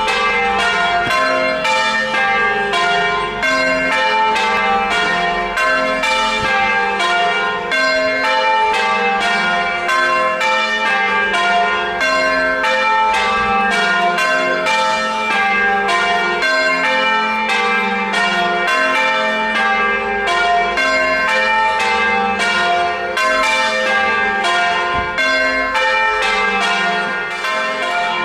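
Church bells change ringing: a peal of tuned bells struck one after another in a rapid, even rhythm, each note ringing on under the next.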